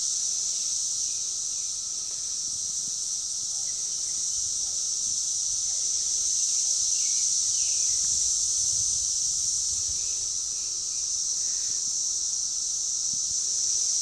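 Brood X periodical cicadas in a mating chorus: a steady, unbroken high-pitched drone.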